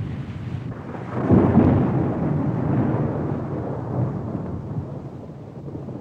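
Thunder rumbling: a rolling peal swells about a second in, then slowly dies away.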